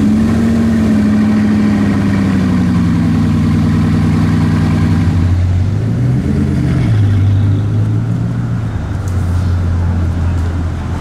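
Bugatti Chiron's quad-turbo W16 engine just after start-up, running at a high idle that slowly settles lower as the car pulls away at walking pace. There is a short blip of revs about six seconds in, then it runs on steadily at a lower pitch.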